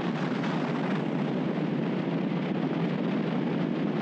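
Steady wind rush and road noise from a vehicle driving at speed, heard through a camera mounted on the outside of the vehicle.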